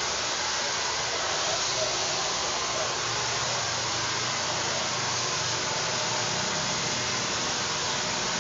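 Handheld hair dryer blowing steadily on a person's hair, a constant even hiss of air.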